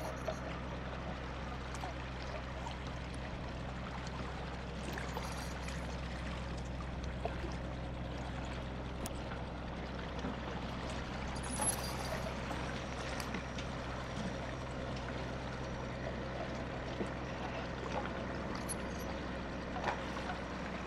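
An engine running steadily at a low, even hum, with water pouring and trickling over it and a few scattered knocks.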